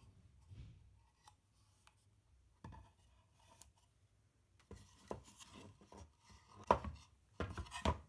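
Small wooden display boxes being handled and set down on a table: a run of light knocks and clatter with rustling, the loudest knocks in the last two seconds.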